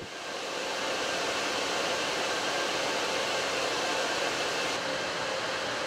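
Cooling fans and air handling of a supercomputer machine room running with a steady, even rushing noise and a faint hum. It cuts in suddenly.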